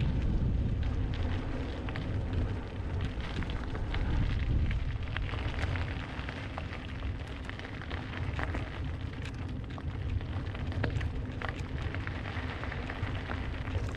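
Wind buffeting the microphone while a touring bicycle rolls over a loose gravel lot, its tyres crackling and crunching on the stones in irregular small ticks.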